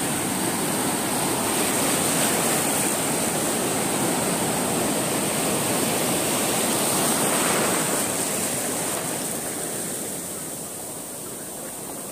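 Ocean surf: waves breaking and foam washing up over wet sand at the water's edge, a steady rushing that eases off in the last few seconds.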